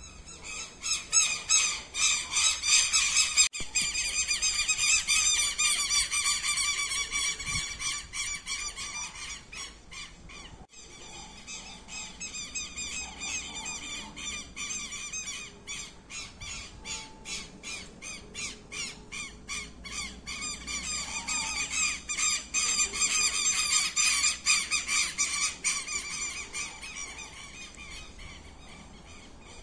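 A flock of birds squawking in a dense, rapid chatter as they fly over. The calls are loudest in the first several seconds, fade, and swell again about twenty seconds in.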